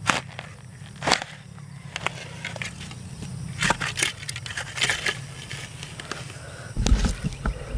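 A spade cutting and scraping into damp, root-filled soil, with crunching strikes every second or so and heavy low thuds near the end.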